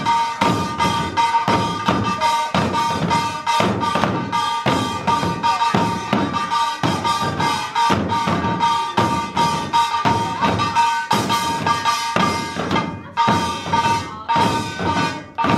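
Korean buk barrel drums beaten in a fast, dense pungmul rhythm by a group of drummers, with a metal gong such as a kkwaenggwari ringing steadily over the strokes. Near the end the drumming thins to separate, spaced hits.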